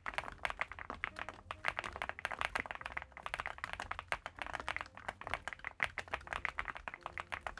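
Fast, continuous typing on an Infi75 gasket-mounted, foam-filled 75% mechanical keyboard, a dense run of key clicks with the soft 'kotokoto' clack the keyboard is built for.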